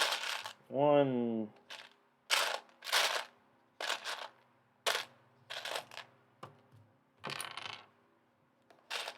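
Small plastic Lego pieces clattering and clicking as they are picked through and handled, in a string of short rattling bursts, one or two a second.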